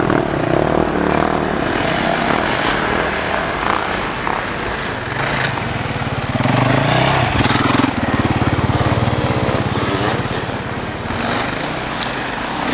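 Enduro motorcycle engines running and revving as the bikes ride through slushy snow, the engine pitch rising and falling with the throttle and loudest around the middle.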